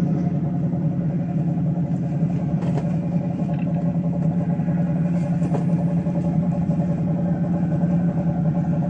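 A vehicle engine running steadily at a constant pace, a loud, even drone, with a few faint knocks around three and five and a half seconds in.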